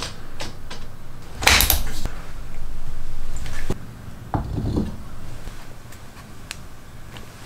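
Plywood parts of a homemade drill-driven wood lathe being slid along its wooden bed and set in place. There is a loud scrape about one and a half seconds in and a steadier slide until nearly four seconds. A couple of wooden knocks follow, then a few light clicks.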